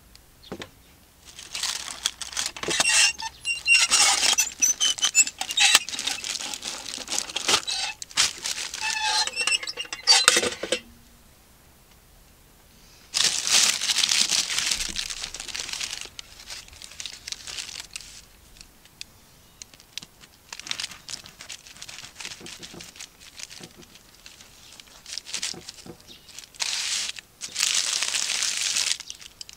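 Baking paper crinkling and rustling in three long bursts as a freshly baked loaf wrapped in it is handled and lifted out of a mess tin.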